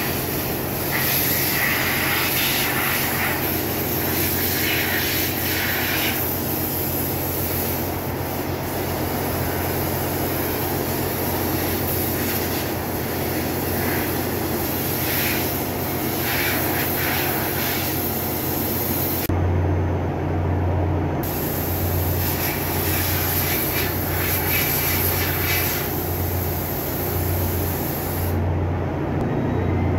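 Steady drone of ship's engine-room machinery, with hissing bursts of a compressed-air blow gun near the start and again about halfway through, blowing out the elements of a generator engine's lube oil bollfilter.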